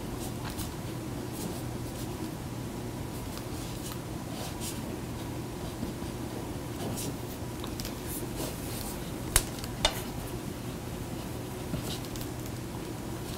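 Pen scratching on paper in short strokes as notes are written, over a steady room hum. Two sharp clicks about half a second apart, a little past the middle.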